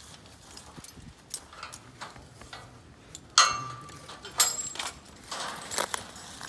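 A coonhound gives one short, high-pitched whine about three seconds in, amid rustling and crunching of dry leaves and short breathy sounds.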